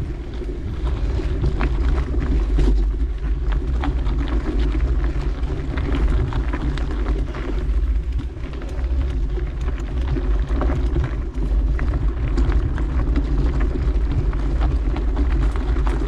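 Mountain bike in motion on a dirt trail: a steady low rumble of wind buffeting the microphone, with tyre noise and many small clicks and rattles from the bike.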